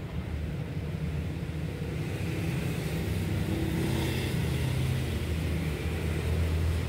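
Low, continuous engine hum, like a motor vehicle running, its pitch shifting slightly.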